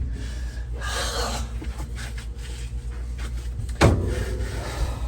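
Rubbing and clicking from parts being handled inside a refrigerator during repair work, with one sharp knock just under four seconds in, over a steady low hum.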